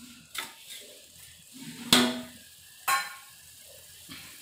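Steel kitchen utensils clanking three times, the second clank loudest and ringing briefly like struck steel, over faint sizzling from the pan on the gas stove.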